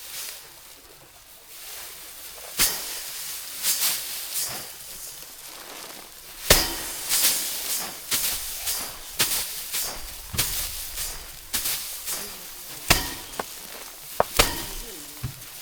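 Rice stalks being threshed by hand: sharp strikes at irregular intervals, each followed by a dry rustling hiss of grain and straw.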